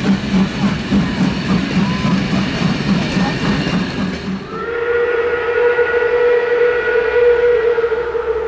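Passenger coaches behind steam locomotive 01 202 roll past with a rhythmic beat. About halfway through, the sound cuts to the locomotive's steam whistle, which sounds one long, steady blast.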